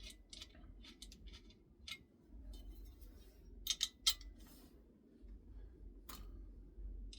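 Scattered small metallic clicks and clinks as welder ground-cable parts and hardware are handled and taken apart by hand, with a few louder clacks about halfway through and one near the end.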